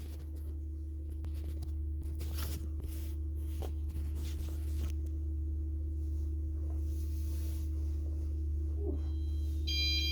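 Electric kettle heating up: a steady low hum and rushing that slowly grows louder, with a few clicks in the first half. Near the end an electronic alarm starts sounding a pattern of high stepped beeps.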